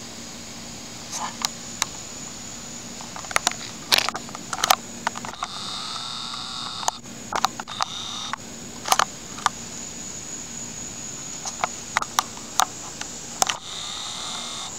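Irregular sharp clicks and knocks from a hand-held camera being handled, over a steady high-pitched drone of insects.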